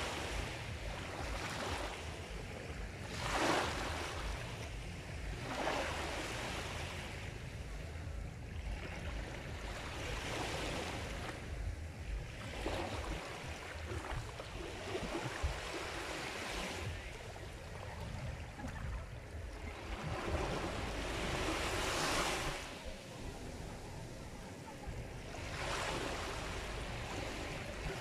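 Sea waves washing onto a shore, the surf swelling and falling back every few seconds over a low, steady rumble.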